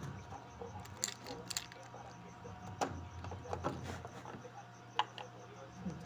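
The plastic drain-pump filter cap of an LG washing machine being unscrewed and pulled out by hand: scattered light plastic clicks and knocks over a faint low hum. It is opened to check a drain pump that is not emptying the drum.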